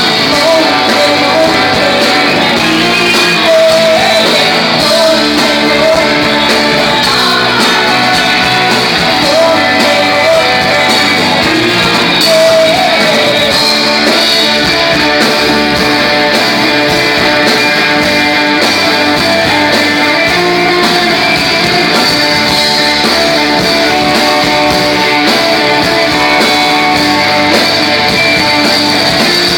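Rock band playing a song live, loud and steady, with electric guitar and a singing voice.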